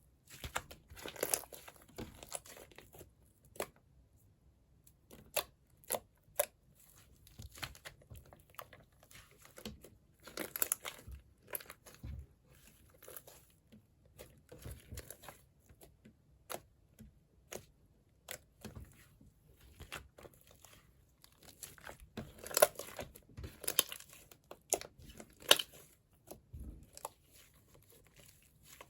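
Clay-mixed jiggly slime being squeezed and pressed by hand, giving irregular sticky clicks, pops and crackles, with denser bursts of crackling now and then.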